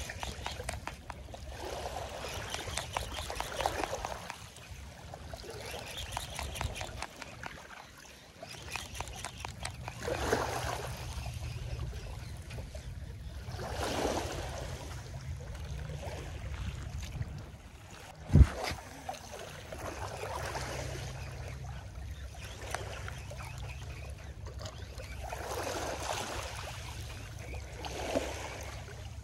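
Small waves washing onto a shallow beach, a swell of surf noise rising and falling every few seconds over a low steady rumble. A single sharp knock comes about eighteen seconds in.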